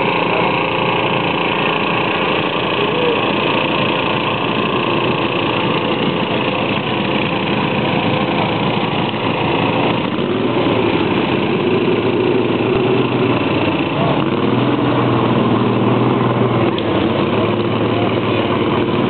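Small garden tractor engines running, their pitch shifting about midway, with voices mixed in.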